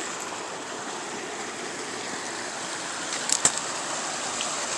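Flash-flood runoff rushing steadily through a drainage channel, with two or three short sharp clicks about three seconds in.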